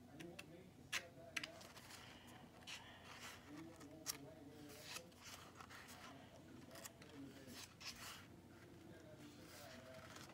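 Pages of a small paperback book being flicked through by hand: faint, with about half a dozen crisp paper snaps spread through.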